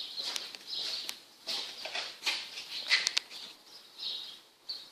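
Piece of chalk scraping on the ground in several short, irregular strokes, with a few sharp clicks.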